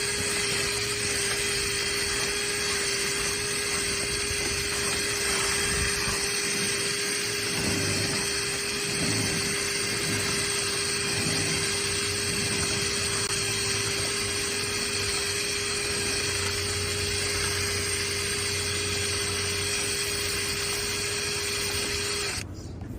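Handheld power tool running at a steady speed during dryer vent cleaning, with an even whine, then switching off about a second before the end.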